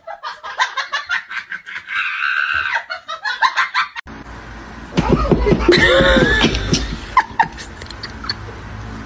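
People laughing. About four seconds in it cuts to another clip, where the laughter is louder and has a low rumble under it.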